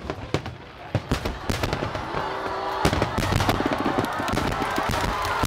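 Aerial fireworks bursting: scattered sharp bangs at first, then from about two seconds in a dense, continuous run of bangs and crackling.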